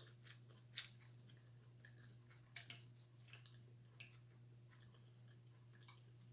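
Quiet chewing and a few short sharp clicks, three of them standing out, as mussels in their shells and boiled shrimp are picked apart by hand in a bowl.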